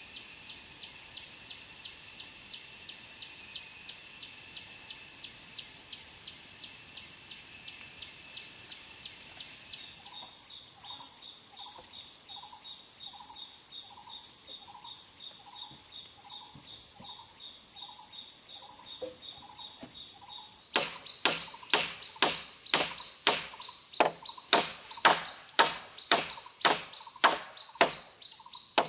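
Forest insects chirp with fast regular ticks, and from about ten seconds a steady high buzz joins them. About 21 seconds in this gives way to sharp, regular blows of a machete on a wooden pole, about two a second.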